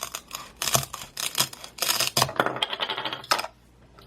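Velcro halves of a toy tomato tearing apart under a plastic toy knife: a crackling, rasping rip mixed with plastic clicks and taps. It stops abruptly about three and a half seconds in.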